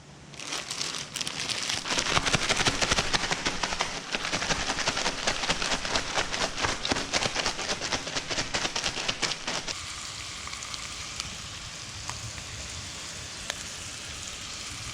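Floured bream fillets frying in oil in a pan, a dense sizzle and crackle that settles to a quieter, steadier sizzle about ten seconds in.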